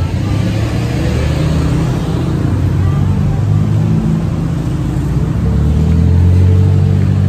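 City street traffic: car engines running close by, a low steady rumble that grows louder near the end.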